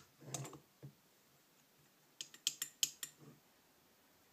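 Small metal carburetor parts clicking and tapping as they are handled: a click at the start with some brief handling noise, then a quick run of about six sharp clicks around two to three seconds in.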